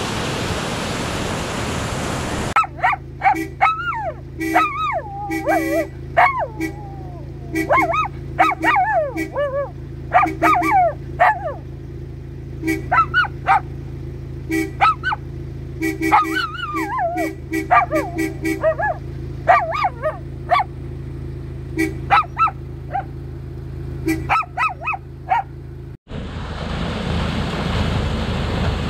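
A dog howling and yelping along with short, repeated honks of a UAZ Bukhanka's horn, over a steady low hum. Rushing flood water at the start and again after a sudden cut near the end.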